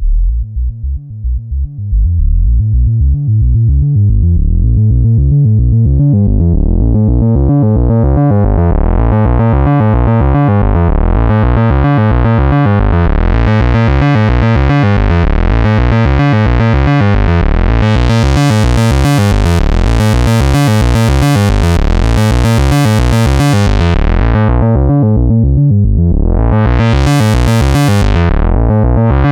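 Eurorack modular synthesizer playing a repeating sequence of low notes from a Morphing Terrarium E350 oscillator through a voltage-controlled filter. The filter slowly opens so the tone grows steadily brighter and buzzier over about twenty seconds, then closes down and briefly flares open again near the end.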